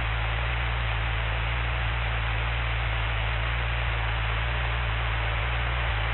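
Steady, muffled low drone with an even hiss: the Cessna 172's engine in climb, heard in the cabin.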